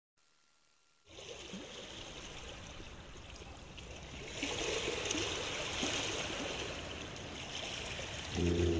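Canal water lapping and splashing, a steady wash that starts about a second in and grows louder about four seconds in. Music comes in just before the end.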